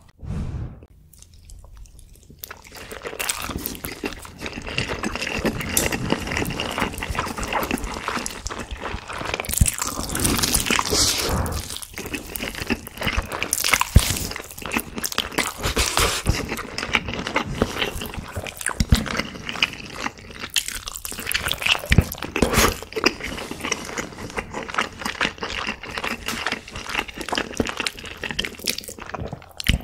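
Close-miked eating sounds: a mouthful of carbonara fire noodles slurped and chewed, then bites into a BBQ chicken leg chewed with many sharp, wet crackles.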